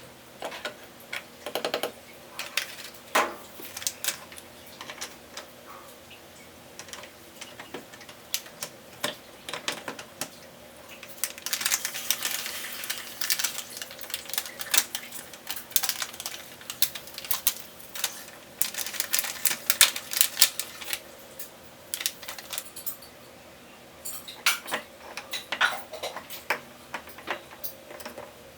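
Hard objects handled at close range: scattered clicks and taps, with two stretches of denser rattling clatter, the first about eleven seconds in and the second about nineteen seconds in.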